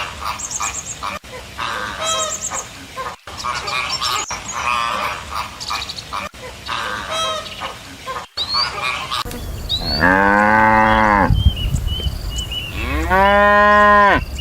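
A cow mooing twice, each moo about a second and a half long and arching in pitch; these are the loudest sounds. Before them, for most of the stretch, a flock of birds gives short, chattering calls that change abruptly several times.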